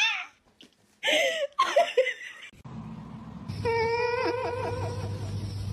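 A short burst of laughter about a second in. Then, over a low hum, a dog's long, steady, high-pitched whine begins about halfway through and holds its pitch with small dips.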